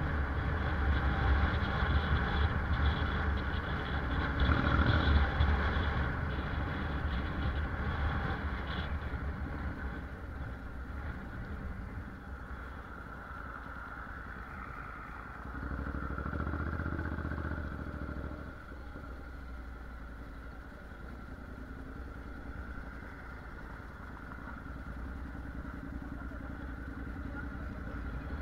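Honda NC750X DCT motorcycle's parallel-twin engine running as the bike is ridden, louder for the first several seconds, then settling lower, with a short louder stretch about halfway through.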